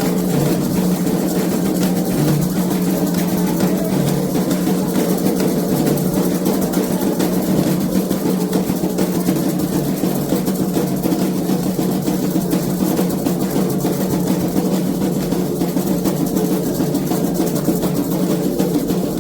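Candomblé atabaque drums playing a fast, continuous ritual rhythm.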